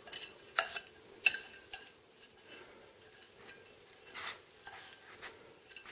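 Glazed ceramic bonsai pot handled and turned over, with a few short clinks and scrapes as the pot and the thin metal wire threaded through it knock and rub against each other and the table.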